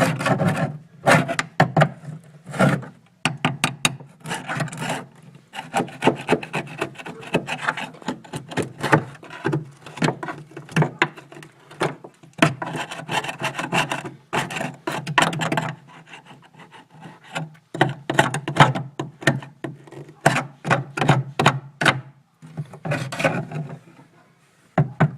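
Hand scraping on a rusty car body panel: quick, irregular rasping strokes, several a second, with short pauses about two-thirds of the way through and near the end.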